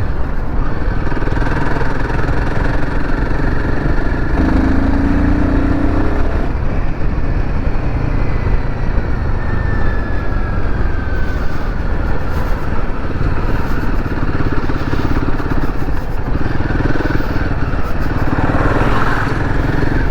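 Royal Enfield Himalayan 450's single-cylinder engine running steadily while the motorcycle is ridden along the road, with the engine note climbing briefly about four seconds in.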